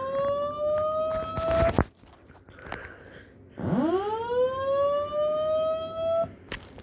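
Voice-evacuation fire alarm speaker sounding the whoop tone: an electronic sweep that rises fast, then levels off and cuts off short, heard twice. One ends about a second and a half in, and after a gap of about two seconds the next whoop sweeps up again.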